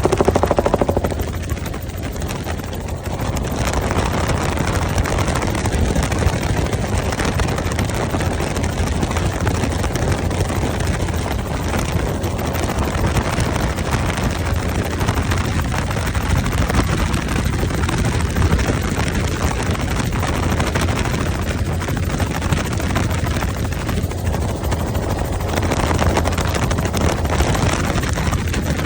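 Helicopter running steadily, a loud, even rush of rotor and engine noise with a strong low drone.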